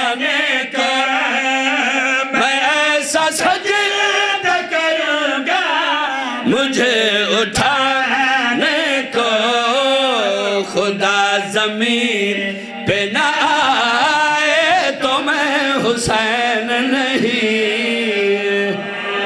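A zakir's devotional verse in Punjabi-Urdu, chanted by a man's voice through a microphone in a long, wavering, melismatic melody. Under it runs a steady held drone note, sung by a second man at another microphone.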